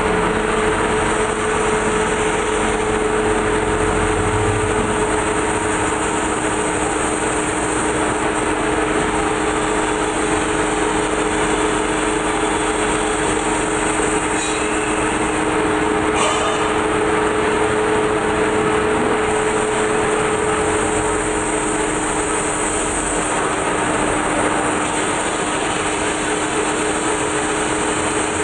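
Large metal-spinning lathe running steadily with a big sheet-metal disc turning on it and a forming tool pressed against it. It makes a constant machine hum with two steady tones over a broad hiss.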